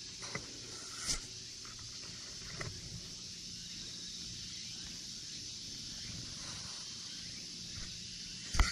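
A steady, high-pitched chorus of insects, with a few soft knocks close to the microphone, the loudest near the end.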